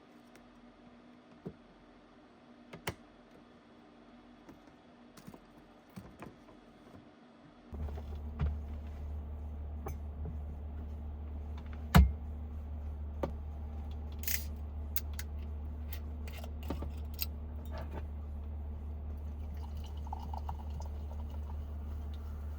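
Light clicks and knocks of things being handled, then a steady low hum switches on about 8 s in and keeps going; one sharp loud click stands out about 12 s in, followed by a few lighter clicks.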